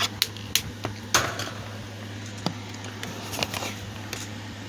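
Scattered clicks, taps and brief rustles from a plastic table fan being handled and turned, over a steady low hum.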